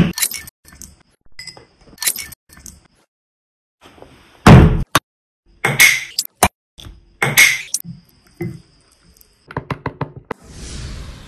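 Small plastic milkshake bottles being handled on a table: a run of knocks and clicks as the screw caps come off and the bottles are set down, with one heavy thunk about halfway through. A fast patter of clicks follows, then a short rush near the end as milkshake starts pouring into a glass.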